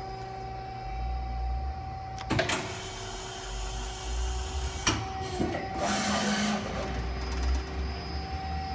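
Okuma ES-L10 CNC lathe being started up at its controls: a steady machine hum, a sharp clunk about two seconds in followed by a brief rush of noise, another click near the middle, and a short whirring burst about six seconds in.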